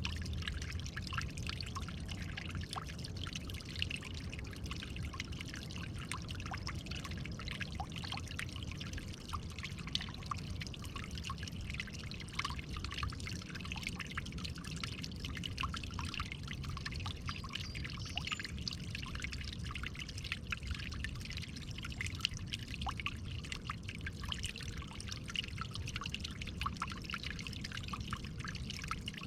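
Steady trickle and splash of running water, with many small drips and plinks.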